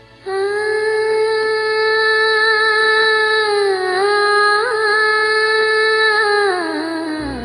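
Music: one long held note, starting abruptly, wavering slightly in the middle and gliding down in pitch near the end.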